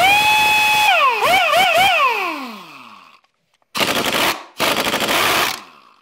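Ingersoll Rand 2235TiMAX air impact wrench, fed through high-flow Milton V-style fittings, spinning freely. It gives a high steady whine for about a second, dips in pitch a few times as the trigger is feathered, then winds down with a falling pitch over about a second and a half. After a short pause come two roughly one-second bursts of rushing noise.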